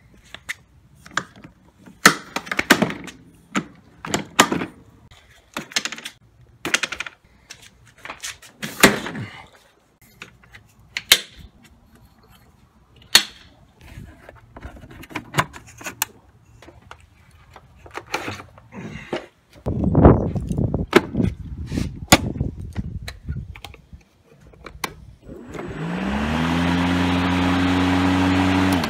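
Scattered sharp clicks, snaps and knocks as an EGO cordless self-propelled lawn mower is handled and set up, with a denser rumble about twenty seconds in. About 25 seconds in, its electric motor spins up with a rising whine and settles into a steady whir.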